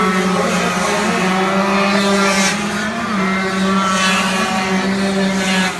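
A racing engine held at high, nearly steady revs, its pitch wavering only slightly.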